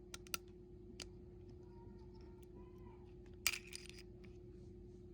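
Light metallic clicks and a short clatter of small parts as the recoil spring assembly is worked out of a Glock 29 slide. There are a few single clicks in the first second and a louder cluster about three and a half seconds in, over a faint steady hum.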